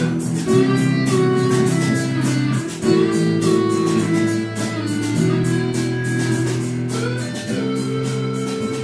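Instrumental intro music: guitar chords changing every couple of seconds over a steady beat.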